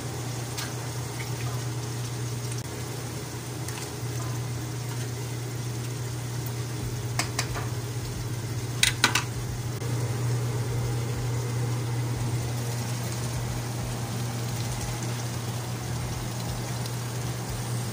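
Tomato stew sizzling and simmering in a frying pan, over a steady low hum. Around the middle, a few sharp metal clicks as a fork scrapes the contents of a tin into the pan.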